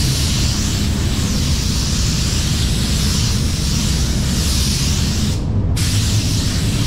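Gravity-feed spray gun hissing as clear coat is sprayed in passes. The hiss swells and fades with each pass and cuts out for a moment about five seconds in, when the trigger is let go, over a steady low rumble.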